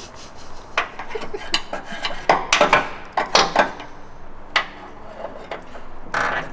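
Clicks, knocks and rattles of plastic trim and parts being handled up under a Chevy K1500 pickup's dashboard. They come in quick clusters, loudest about two to four seconds in, with a few more knocks later.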